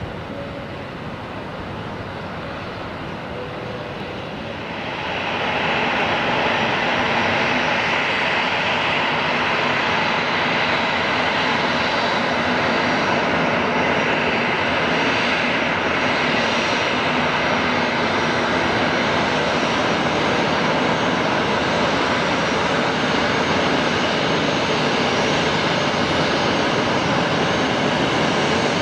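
Boeing 737-500 jet engines (CFM56-3 turbofans) running at taxi power, a steady rushing sound with a high whine. It grows louder about five seconds in and then holds steady.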